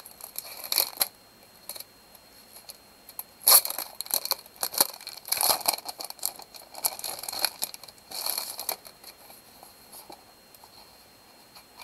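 Clear plastic packaging bag crinkling and rustling in irregular bursts as sheets of sticker labels are handled and pulled from it, the loudest burst about three and a half seconds in.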